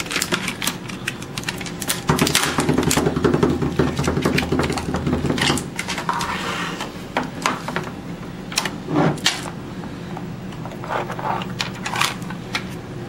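A plastic-and-cardboard retail package being handled and worked open by hand: a steady run of clicks, crinkles and scrapes, with a louder, denser stretch of scraping about two seconds in that lasts a few seconds.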